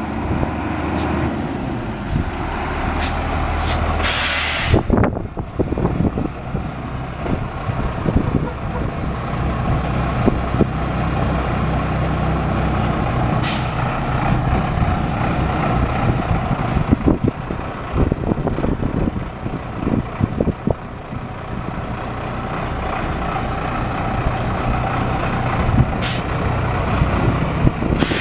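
International DTA466T 7.6-litre inline-six diesel of a 1997 International 4900 dump truck running steadily. Its air brakes let out a loud hiss of air about four seconds in, and there are a few short sharp clicks.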